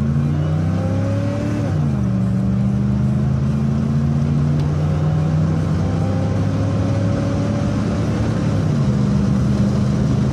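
Ford 460 (7.5-litre) V8 in an F-250 pickup accelerating hard through a Flowmaster muffler, heard from inside the cab. The engine note climbs, drops suddenly as the automatic transmission upshifts under two seconds in, then climbs slowly again and drops with a second upshift near the end.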